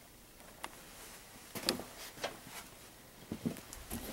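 A few faint, scattered clicks and knocks of hard objects being handled, as radio units and parts are moved about in the box.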